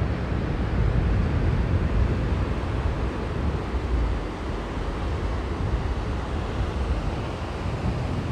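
Sea surf washing onto the beach, with wind rumbling on the microphone.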